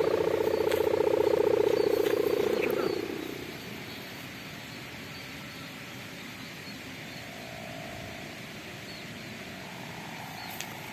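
Kite hummer (sendaren) droning with a loud, rough, bulldozer-like buzz that fades out about three seconds in, leaving only a faint outdoor background with a weak hum near the end.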